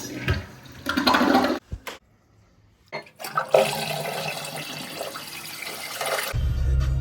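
Toilet flushing, a steady rush of water through the bowl, after some shorter splashing bursts and a brief pause. Music comes in just before the end.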